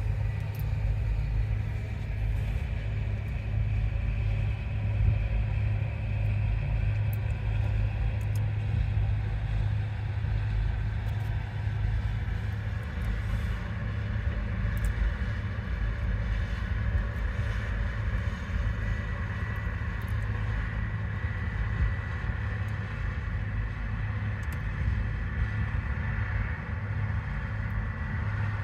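Truck engine idling, heard from inside the cab: a steady low rumble that holds an even level throughout, with a faint steady higher hum above it.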